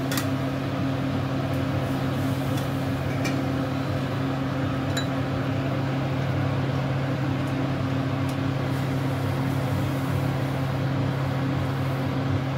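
Steady low hum of a kitchen motor, with a few light clicks and taps as pieces of beef are laid into a wok of water.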